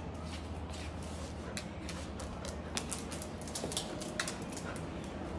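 Samoyed's claws clicking and tapping on a tiled floor as the dog moves about, light irregular clicks, over a low steady hum.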